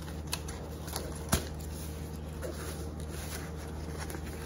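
Cardboard packaging being worked off a plastic dustpan and broom: light rustling and scraping of card, with a sharp click about a second and a half in.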